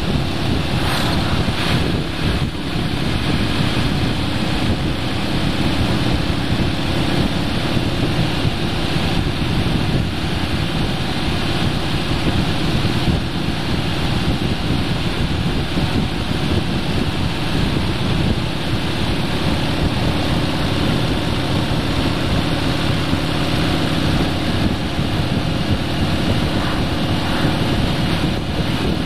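Wind rushing over the microphone and tyre and road noise from a vehicle driving steadily along a paved road, with a low engine hum underneath. An oncoming truck passes within the first couple of seconds.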